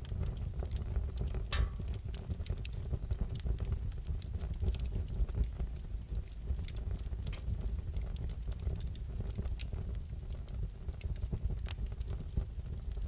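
Wood fire crackling in a fireplace: irregular small pops and snaps over a steady low rumble, with a brief hiss about a second and a half in.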